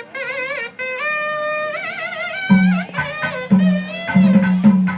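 Traditional folk music: a reed wind instrument plays a wavering, ornamented melody. About halfway in, a drum joins, beating roughly twice a second.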